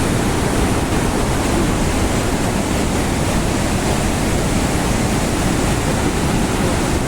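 The Rhine Falls: a steady, loud rush of heavy falling water, even and unbroken.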